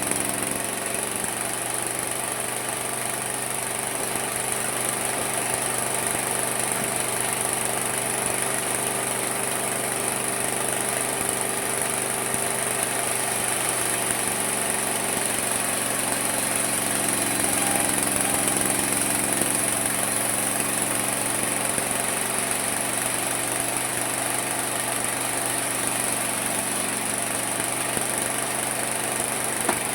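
Homemade mini sawmill running steadily for the whole stretch: a constant motor hum with a high-pitched whine above it, the pitch of the hum shifting slightly a couple of times.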